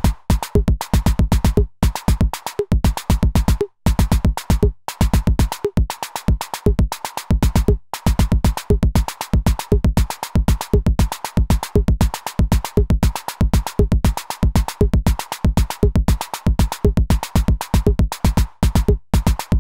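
Electronic drum voices from a modular synth, triggered by a Pocket Clock-It trigger sequencer, playing a fast looping pattern of low kick-like hits and sharp clicks, about five a second. There is a brief drop-out about four seconds in.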